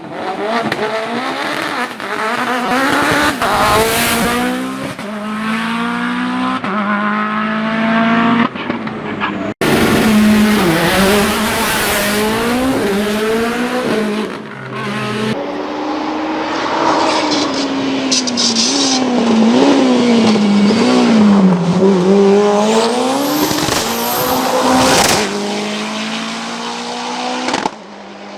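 Mitsubishi Lancer hill-climb prototype race car driven flat out. The engine revs climb and drop repeatedly through gear changes, with quick up-and-down blips midway and some tyre squeal. The sound cuts abruptly about ten seconds in and again near the end.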